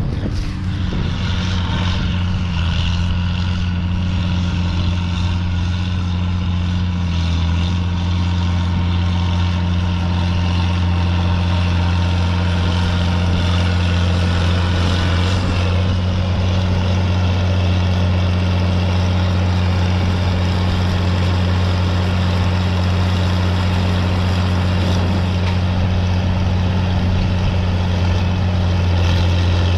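Tractor engine running steadily at constant revs, a deep even hum.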